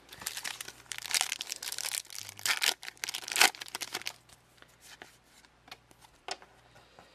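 A trading-card booster pack's wrapper being torn open and crinkled for about four seconds, then quieter handling of the cards with a few light clicks.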